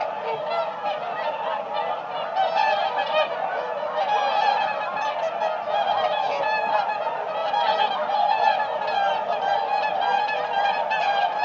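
A flock of whooper swans calling together: many loud, trumpeting honks overlapping in a continuous chorus.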